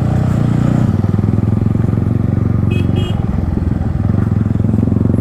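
Yamaha MT-15's single-cylinder engine running steadily through an aftermarket Akrapovic exhaust, with a fast, even low pulse. Two short high beeps come about three seconds in.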